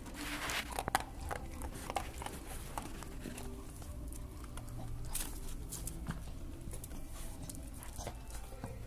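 English Cocker Spaniel eating dry kibble from a plastic bowl: irregular crunching and small clicks.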